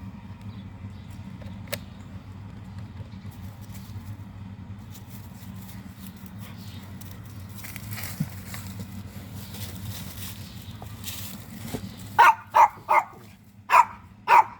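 A low steady hum, then near the end a dog barks five times in quick, sharp succession.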